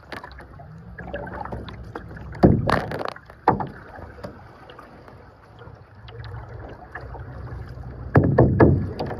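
Kayak paddling: paddle strokes and water sloshing against a clear plastic kayak hull. There are sudden louder splashes and knocks about two and a half seconds in, again a second later, and near the end.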